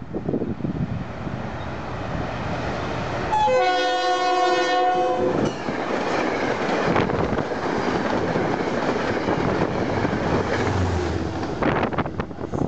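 A Metro-North push-pull train passes close by with a continuous rumble and rattle of wheels on the rails. About three seconds in, the locomotive's air horn sounds one steady chord lasting about two seconds.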